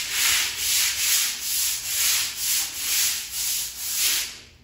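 Stiff plastic broom scrubbing a wet tiled floor in quick back-and-forth strokes, about two a second, stopping just before the end.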